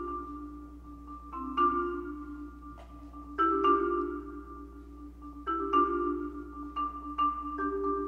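Concert marimba played with four mallets: chords of low and high notes struck together at uneven intervals, each left to ring until the next.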